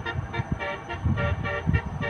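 Basuri telolet musical horn on a Nabilla bus playing a quick tune of short pitched notes, about four or five a second.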